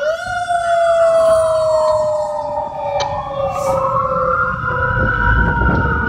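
Fire truck siren wailing: it winds up sharply at the start, slides slowly down in pitch for about three seconds, then rises again and begins to fall near the end.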